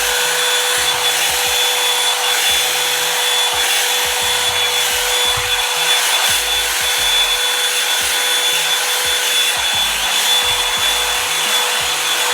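Revlon One-Step hot-air brush running on its cool setting as it is drawn through dried hair: a steady blowing rush over a constant high motor whine.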